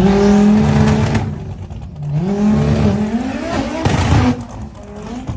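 Chevrolet C20 pickup's twin-turbo V8 being warmed up and revved hard twice, the pitch climbing and holding each time, then dropping back to a lower, quieter idle near the end.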